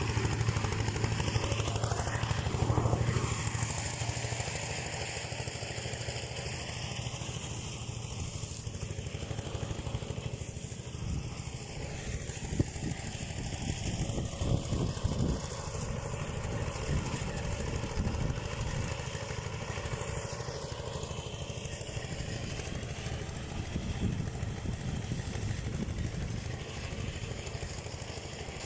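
Small engine of a rice thresher running steadily, with a continuous low throb.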